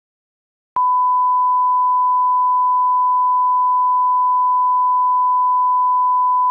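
A steady, pure electronic tone at about 1 kHz, like a test tone, starting abruptly about a second in after dead silence and holding at one unchanging pitch.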